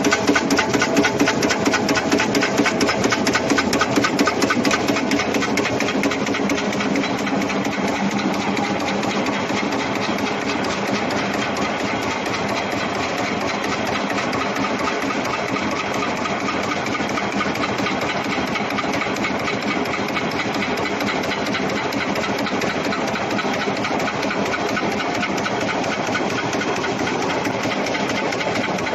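CNC expanded metal machine running, its press stamping and slitting the sheet in fast, even, repeated strokes. The strokes are a little louder and sharper for the first few seconds, then settle into a steady clatter.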